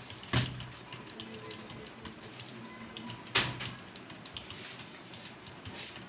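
Computer keyboard being typed on fast, with a stream of small irregular key clicks. Two loud knocks come about three seconds apart.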